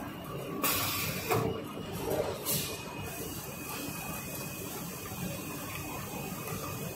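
SOC6028 curved-surface heat transfer printing machine finishing a print on a plastic bucket: two short hisses about a second in and again at about two and a half seconds, as the press head releases, over a steady machine hum. A faint high whine holds on after the second hiss.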